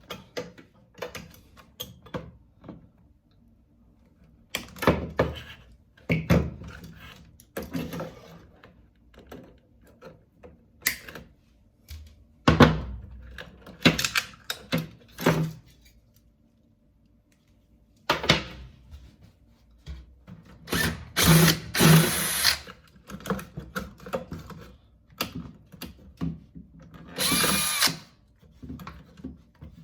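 Cordless drill running in short bursts to back out screws, the longest runs a little past two-thirds of the way through and near the end, between knocks and clatter of plastic and sheet-metal parts being handled.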